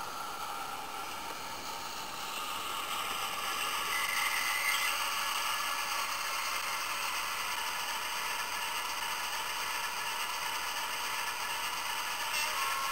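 Simulated diesel engine sound from an ESU LokSound decoder playing through the model locomotive's small 23mm speaker, mixed with the running clatter of the OO gauge model on its track. It grows louder about two to four seconds in and then holds steady. A steady two-note sound starts just before the end.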